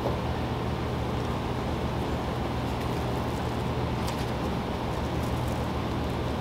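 Steady low hum and even hiss of a room's background drone, like ventilation or air handling running, with a faint light tick or two about four seconds in as headliner fabric is pressed down by hand.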